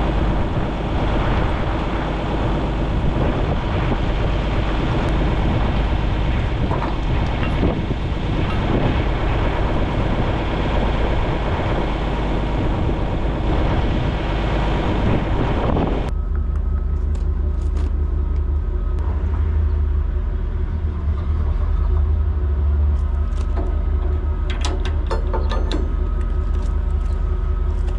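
Farm machinery engine running steadily with mechanical clatter; about sixteen seconds in the sound changes abruptly to a low, steady rumble with occasional light clicks.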